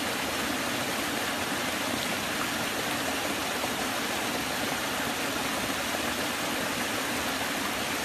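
Small forest stream running over a low rock ledge in little cascades: a steady splashing of water.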